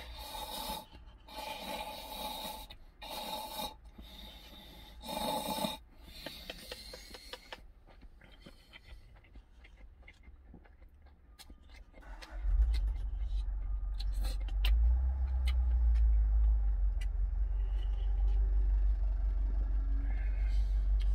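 Cup noodles slurped off chopsticks in four loud slurps over the first six seconds, followed by quieter chewing and soft clicks. About twelve seconds in, a low engine rumble starts and runs on steadily, louder than the eating.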